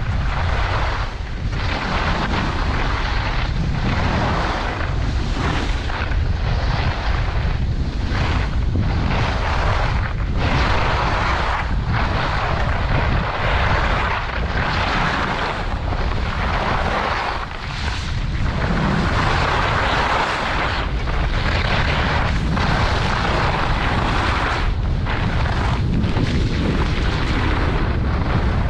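Wind buffeting the microphone of a camera carried by a skier going downhill, a steady low rumble. Over it the skis scrape across the groomed snow, a hiss that swells and fades every second or two with the turns.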